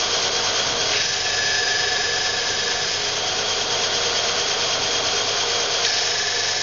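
Bench combination belt-and-disc sander running, with a small timber rib piece held against the spinning sanding disc to sand it down to the marked line. A higher whine joins the steady machine noise about a second in, fades after a couple of seconds, and returns near the end.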